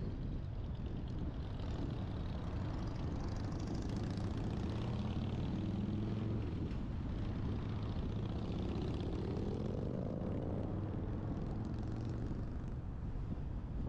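Traffic sound from a vehicle driving on a city street: steady road rumble and engine hum, with an engine note that rises in pitch around eight to ten seconds in as a vehicle accelerates.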